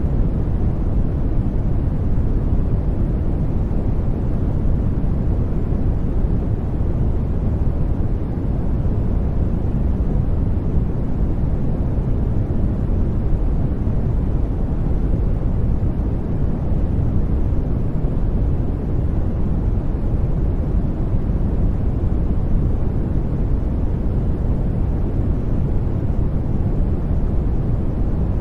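Steady generated white noise, even and unchanging, deep in tone with most of its energy low and little high hiss.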